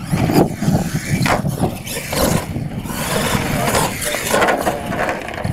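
Radio-controlled monster truck driving over a dirt track and jumping ramps, with people talking in the background.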